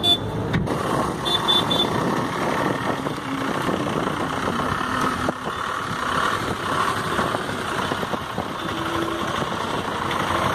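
Steady engine hum of a vehicle ferry at the jetty, with the cars and motorcycles on its deck idling as they wait to drive off. A few short high beeps sound a little over a second in.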